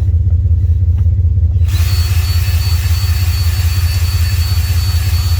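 A steady low rumble; about a second and a half in, a drill spins up a three-bar cylinder hone inside the engine bore, giving a steady high whine over an even hiss of the stones on the cylinder wall.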